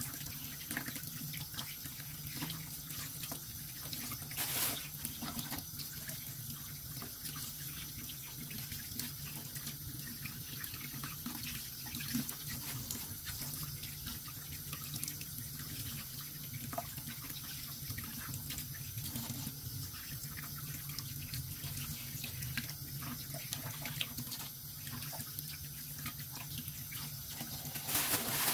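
Water running steadily from a tap into a sink, with small scattered clicks and knocks of handling in the basin and a couple of brief louder splashes.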